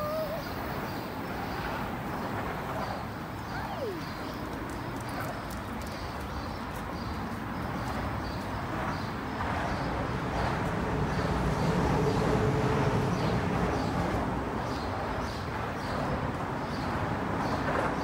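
Footsteps on a dirt trail at a walking pace, over a steady outdoor background noise that grows louder about ten seconds in.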